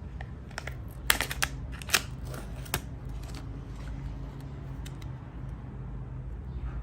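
Crinkling and sharp clicks of plastic packaging being handled, with a cluster of crackles between about one and three seconds in, over a steady low hum.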